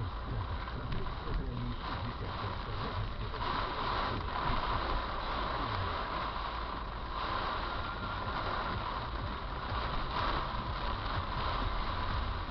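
Heavy rain pouring, a steady hiss that swells and eases in waves, over a low rumble.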